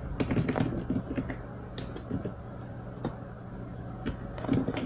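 A few scattered keystrokes on a computer keyboard, short clicks with pauses between them, over a steady low electrical hum.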